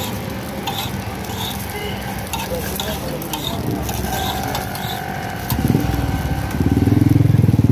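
Aloo patties sizzling on a large flat iron griddle, with a metal spatula clicking and scraping against it. From about five and a half seconds in, a low engine rumble from a motor vehicle close by rises over it and becomes the loudest sound near the end.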